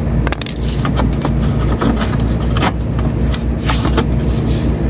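Steady low engine rumble of a running motor vehicle, with scattered sharp clicks and knocks of hand tools working on a refrigerator's metal casing.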